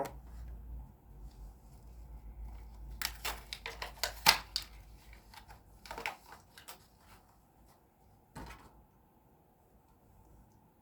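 Die-cast toy cars being handled and set down: a quick run of clicks and knocks about three seconds in, a few more around six seconds, and a single knock near eight and a half seconds.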